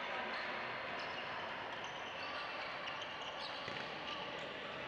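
Badminton play in a large sports hall: scattered sharp hits of rackets on shuttlecocks from several courts over a steady hall din, with faint voices.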